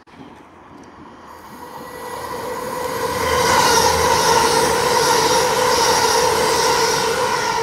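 TransPennine Express Class 802 bi-mode train passing through the station at speed. The noise builds as it approaches and is loudest as the carriages rush past, with a steady whine over the rush, then falls away near the end.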